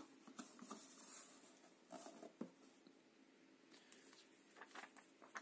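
Faint rustling of paper and cardboard with a few soft taps, as an opened cardboard box and the printed leaflet inside it are handled.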